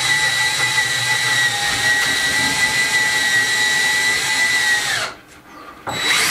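Cordless drill running at a steady high speed, boring a pilot hole into timber for a screw. The whine stops about five seconds in, and the drill starts again just before the end for the next hole.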